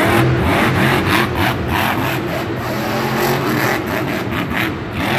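Grave Digger monster truck's supercharged V8 engine running loud, revving up and down as the truck drives across the dirt.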